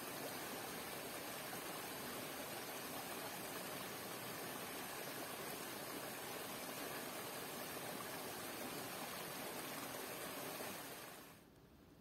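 Shallow mountain stream rushing over stones into a small cascade: a steady, even water rush that fades out near the end.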